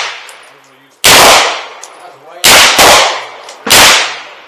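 Four gunshots fired one at a time, each with a decaying tail: one about a second in, a quick pair about a second and a half later, and a fourth near the end. The tail of an earlier shot fades out at the start.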